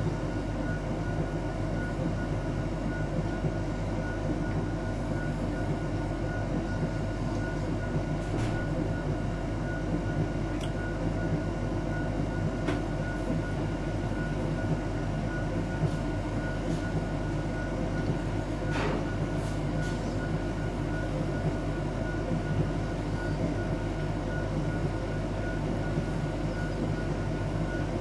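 LG heat pump tumble dryer running: a steady mechanical hum and rumble from its compressor, fan and turning drum, with a few faint clicks.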